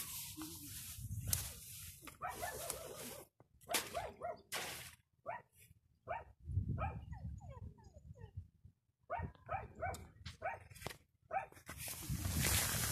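Short pitched animal calls in quick runs, some falling in pitch, about five and again about nine seconds in, with a rise of rushing noise near the end.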